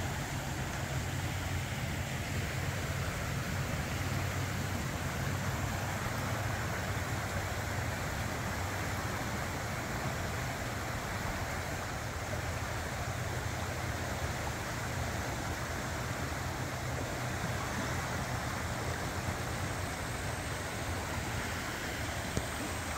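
A river in flood rushing steadily past the bank: a constant hiss of fast-moving water over a low, steady rumble.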